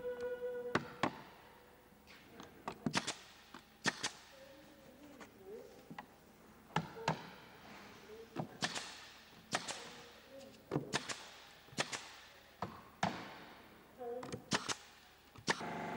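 Pneumatic nail gun driving fasteners into wooden ceiling panelling: about twenty sharp cracks at uneven intervals, often two in quick succession.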